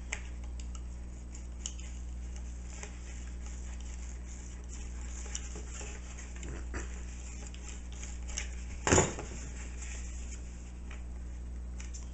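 Hands handling wires and a cardboard shoebox lid fitted with LED strips: small scattered clicks and rustles, with one louder knock about nine seconds in. A steady low electrical hum lies underneath.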